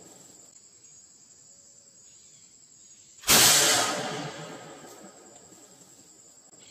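A single gunshot about three seconds in, its report dying away over a second or so. A steady high insect drone runs underneath.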